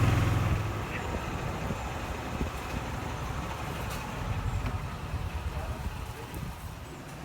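An engine running with a low, pulsing rumble, loudest in the first second, then settling to a quieter steady rumble.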